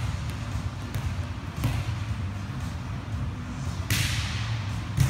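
Volleyballs being struck and bouncing on the gym court: a few sharp slaps, one about one and a half seconds in and a louder one near the end, over a steady low hum.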